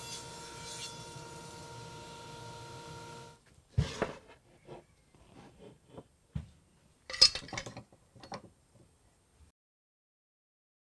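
A table saw runs with a steady hum for the first few seconds. After that come scattered light knocks and clicks as walnut boards are handled and set against one another.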